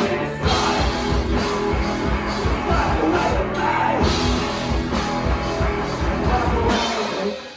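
Live rock band playing, with drum kit, electric guitars and bass; the song stops abruptly near the end.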